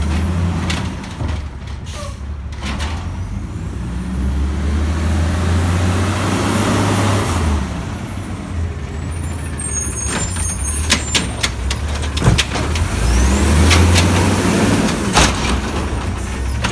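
Natural-gas engine of an Autocar WX garbage truck with an Amrep automated side-loader body, running as the truck pulls up, with hissing and a few sharp clanks partway through. Near the end the engine is revved to drive the hydraulic arm, which lifts a recycling cart.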